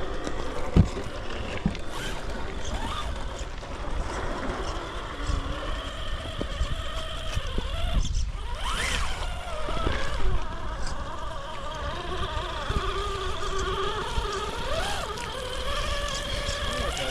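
Electric motor and gearbox of an RC rock crawler whining, the pitch rising and falling as the throttle is worked, over a low rumble.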